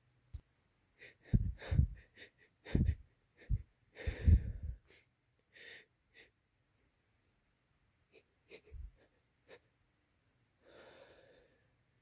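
A person's sneeze build-up: a run of short, sharp gasping breaths, loudest between about one and five seconds in, then a few softer catches of breath and one longer breath near the end.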